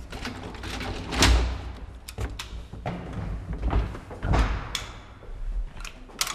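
Old cage lift's folding metal scissor gate being pulled open: a string of sharp metal clanks and rattles, over a low rumble that fades about five seconds in.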